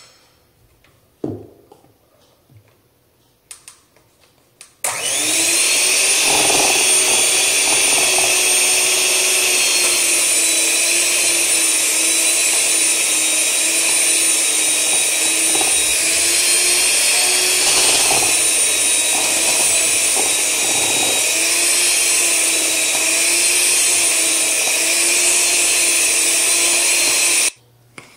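Electric hand mixer running steadily as it beats chocolate icing in a bowl, its pitch wobbling slightly as the beaters work. It starts about five seconds in, after a few light knocks, and stops sharply near the end.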